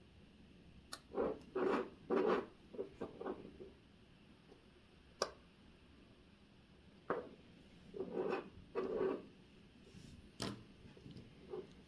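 Small hand tools and parts handled at a watchmaker's bench during work on a vintage watch movement: two clusters of short scraping rubs, with a few sharp clicks between them.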